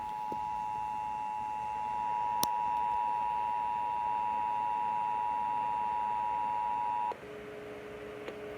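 Emergency Alert System attention signal: the steady two-tone alarm of 853 Hz and 960 Hz, cutting off after about seven seconds. A quieter, lower steady tone takes over after it, and a single click comes about two and a half seconds in.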